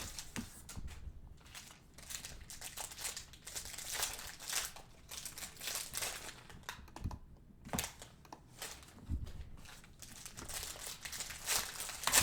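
Trading-card pack wrappers crinkling and being torn open, an irregular run of short crackly rustles that is loudest near the end.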